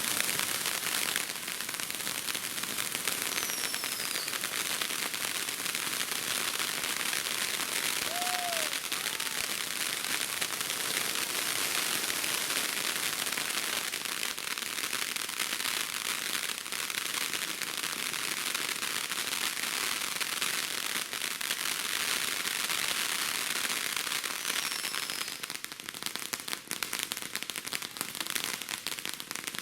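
Ground fireworks crackling in a dense, continuous rattle of tiny pops for about 25 seconds, with a few faint short whistles. Near the end the crackle thins out into scattered pops as the device burns out.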